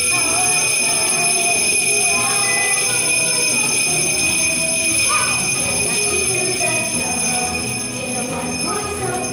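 Small handheld jingle bells shaken continuously by a group of young children, giving a steady jingling, with children's voices mixed in.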